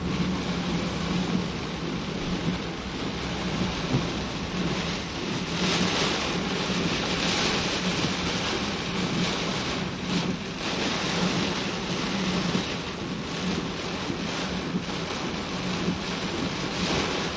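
Heavy rain pouring with wind, heard from a moving vehicle, with a steady engine hum underneath.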